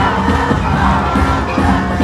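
Loud dance music with a steady, repeating drum beat, over a large crowd cheering and shouting.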